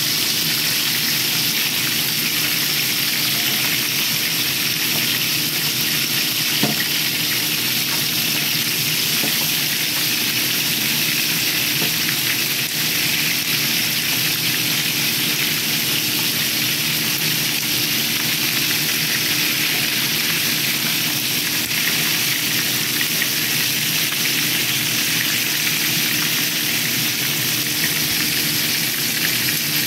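Whole round scad (galunggong) deep-sizzling in hot oil in a frying pan: a steady, dense crackling hiss over a faint low hum. There is one brief tap about a quarter of the way in.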